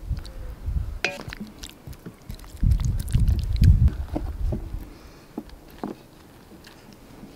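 Cooked meat cubes scraped off a wooden spatula onto a sheet of caul fat, then hands handling and folding the fat around them, with small wet clicks and rustles. There is a sharp clatter about a second in, and irregular low rumbling bursts between about two and a half and four and a half seconds in make the loudest part.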